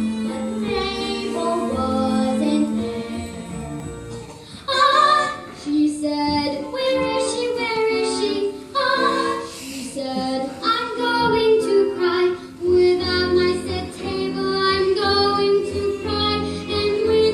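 Young female voices singing a show tune from a stage musical over instrumental accompaniment, with held notes and a louder passage starting about five seconds in.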